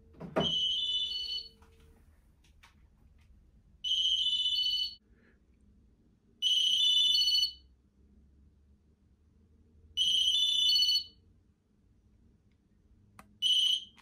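Ericsson mobile phone ringing with an incoming call: a short high electronic ringtone tune, about a second long, repeated five times every three seconds or so.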